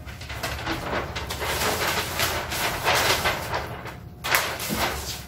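Large flipchart paper sheets being lifted and flipped over the top of the pad: a run of rustling, crackling paper, with one sharper crackle a little after four seconds in.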